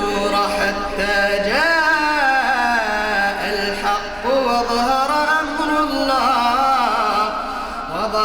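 A man's voice chanting Quran recitation in a melodic style, drawing out long ornamented notes that glide up and down in pitch without a break.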